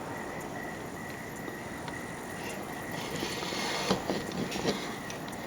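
Outdoor ambience: a steady hiss with a faint insect chirping in an even pulse, and a few soft knocks and rustles about four seconds in.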